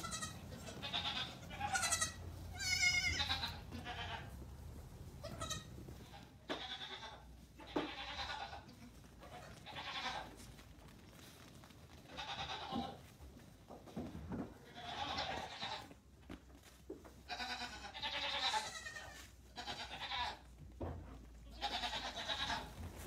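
Goat kids bleating over and over, a dozen or so high, wavering calls from several kids, some overlapping, the loudest about two to three seconds in.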